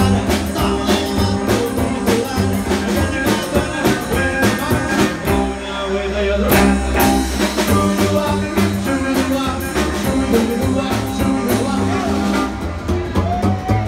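Rockabilly band playing live: upright bass, guitar, drum kit and a singing voice. The drums drop out briefly about five seconds in, leaving the bass notes, then come back.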